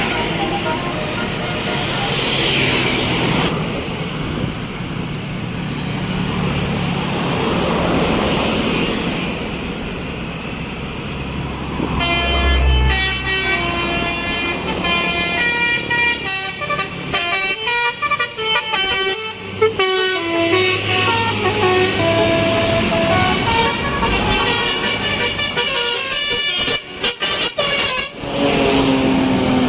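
Bus engine and traffic, then about twelve seconds in a Basuri telolet horn, a multi-tone bus air horn, plays a tune of quick stepped notes for about fifteen seconds, breaking off sharply several times near the end.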